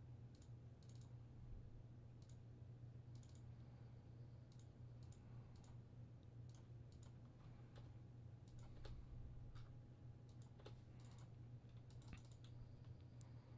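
Faint, irregular clicks of a computer mouse and keyboard being used, over a low steady hum.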